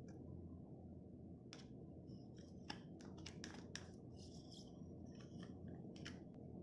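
Faint, irregular crackling ticks of desi ghee starting to melt in a hot nonstick wok, over a low steady hum.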